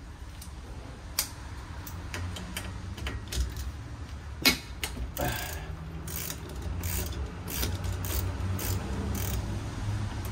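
Hand ratchet wrench clicking in short strokes, about two a second, as it loosens the brake caliper's mounting bolts. A single sharp knock sounds a little before the clicking starts.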